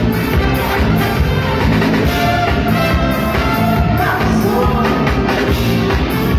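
Live bailão dance band playing loud with a steady dance beat: lead vocal over electric bass, drums and a trumpet section.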